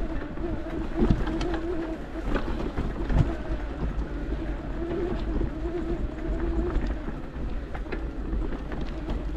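Mountain bike riding up a rough trail: wind rumbling on the microphone and tyres crunching over stones with scattered sharp clicks, under a wavering hum that comes and goes in stretches of about a second.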